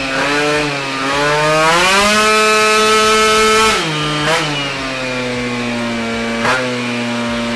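Yamaha Aerox scooter's two-stroke engine, fitted with a Smart Carb, running on a dyno. The revs climb about two seconds in, hold high for a couple of seconds, then drop back, with short sharp pops twice in the second half.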